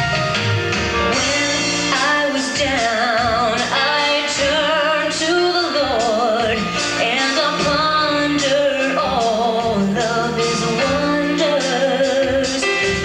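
Vocal group singing a gospel song with vibrato, backed by a band with guitar and a steady beat.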